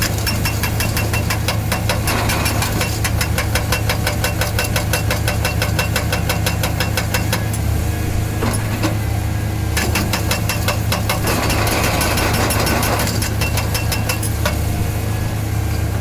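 Montabert V4500 hydraulic breaker on a Hitachi 470 excavator hammering with rapid, evenly spaced blows in two long runs, with a short pause about eight seconds in, stopping shortly before the end. The excavator's diesel engine runs steadily underneath.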